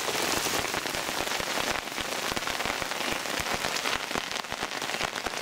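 Hail and heavy rain pelting wet mud and puddles: a dense, steady hiss full of small, sharp taps from the hailstones.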